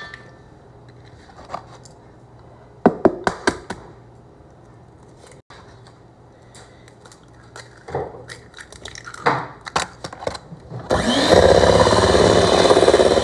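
A few sharp taps of eggs being cracked on the rim of a metal mixing bowl, about three seconds in and again around eight to ten seconds. Then an electric mixer switches on about eleven seconds in and runs loud and steady, beating the pound-cake batter.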